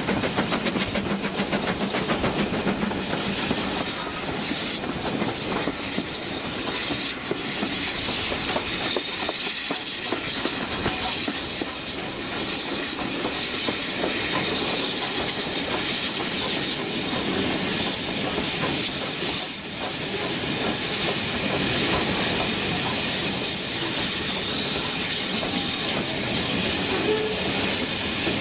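Steam-hauled train running, heard from the carriage window: a steady rumble and hiss with the clickety-clack of wheels over the rail joints.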